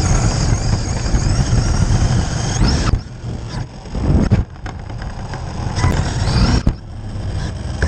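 Losi DBXL-E electric RC buggy driving hard, its brushless motor whining up in pitch as it accelerates, over tyre and drivetrain noise. The sound is loud for about three seconds, then drops, with a second run of acceleration around six seconds in.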